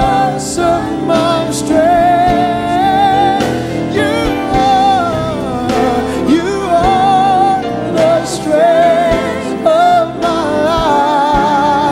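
Gospel worship music with singing, a lead voice carrying a wavering melody over sustained instrumental accompaniment.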